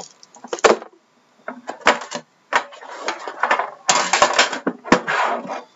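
Rustling of plastic wrapping and sharp clicks and knocks from unwrapping and handling a trading card box and its tin on a wooden desk.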